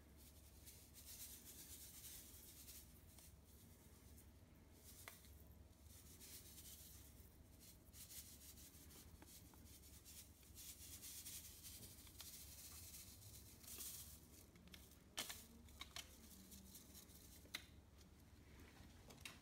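Faint rustling and crinkling of a sachet of US-05 dry yeast being shaken as the granules are sprinkled onto wort, with a few light ticks about three-quarters of the way through.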